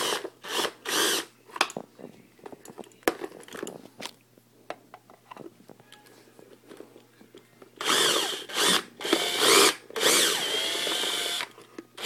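Makita drill backing out screws in short bursts: a few quick spins just after the start, scattered clicks while the bit is fitted to the next screw head, then longer runs near the end with the motor's pitch rising and falling.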